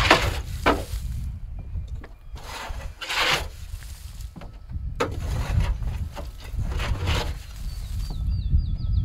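Dry branches of pulled-out trees rustling and scraping as they are dragged and handled, in several short swishes a second or two apart over a steady low rumble. A bird chirps rapidly again and again near the end.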